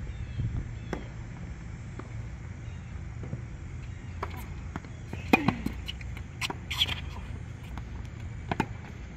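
Tennis balls struck by rackets and bouncing on a hard court during a rally: a run of sharp pops spaced irregularly, the loudest about five seconds in, over a steady low rumble.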